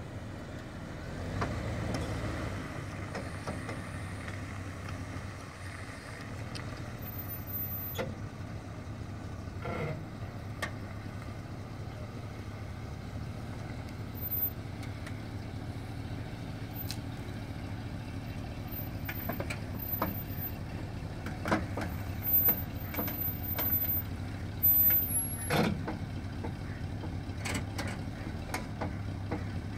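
Pickup truck engine running steadily at low speed while towing a wheeled floatplane dolly, with occasional sharp clicks and knocks over the steady hum.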